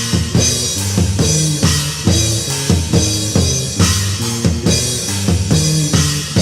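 Black metal band playing: distorted guitar chords held over a drum kit, with kick and snare hits on a steady beat.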